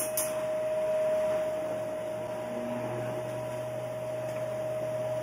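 Steady machinery hum aboard the vessel: one constant whine over a low, even rushing noise, swelling slightly about a second in.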